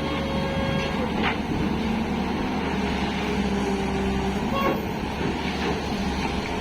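Tata Hitachi EX 215 excavator's diesel engine and hydraulics running steadily under work, with a couple of short knocks about a second in and again near five seconds.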